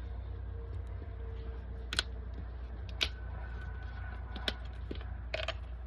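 A few light clicks and taps from handling the oil bottle and funnel while fluid is poured into the primary case, over a steady low hum.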